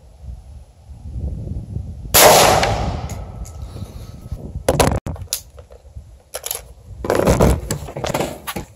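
A single shot from an AR-style rifle firing Wolf 55-grain FMJ .223 ammunition about two seconds in, with a long echoing tail. It is followed by several softer knocks and rustles.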